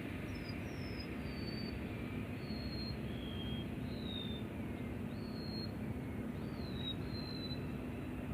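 A bird singing a series of short, high whistled notes, about one a second, several of them sliding down in pitch, over a steady background hiss and low hum.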